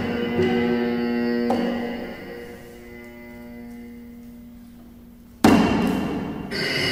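Amplified cello: a low held note with ringing overtones dies away slowly, then a sudden loud accented attack about five seconds in rings out, followed by higher ringing tones near the end.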